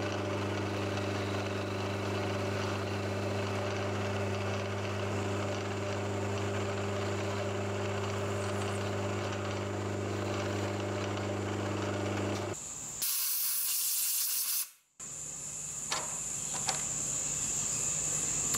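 Milling machine's spindle running steadily with a hum while drilling holes in an aluminium plate; it stops about twelve seconds in. A loud hiss follows for about two seconds, then a few faint clicks.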